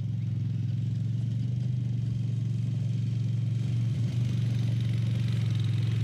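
An engine running steadily: a low, even hum with a fast regular pulse.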